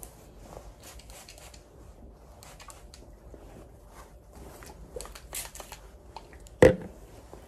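Soft rustling and small clicks of hair and scalp being worked by hand, with one sharper click near the end.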